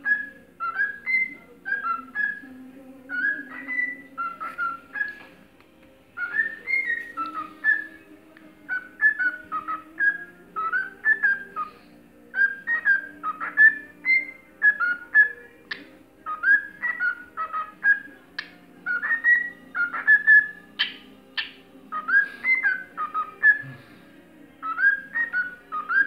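Cockatiel whistling its song: repeated phrases of short whistled notes that glide up and down, several notes a second with brief pauses between phrases, and a few sharp clicks in among them.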